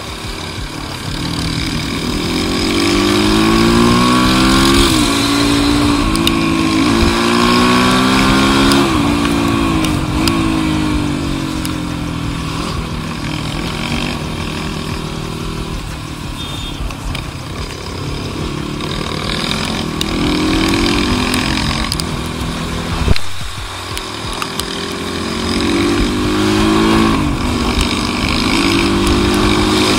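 Motorcycle engine under way, revving up and shifting up through the gears: its pitch climbs and drops sharply several times, then runs more evenly before climbing through the gears again. A brief loud bump comes about three-quarters of the way through.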